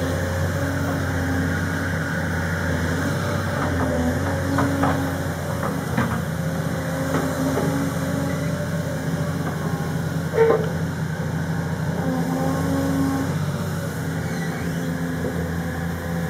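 Case CX210 crawler excavator's diesel engine running steadily, its hum shifting as the hydraulics work the boom and bucket and the machine tracks along. Several short metallic clanks, the loudest about ten seconds in.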